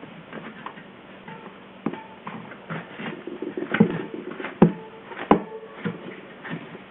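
Handling noise as a new inner tube is tucked into a bicycle tyre on the wheel rim: soft rubbing with a few sharp knocks and clicks, most of them in the second half.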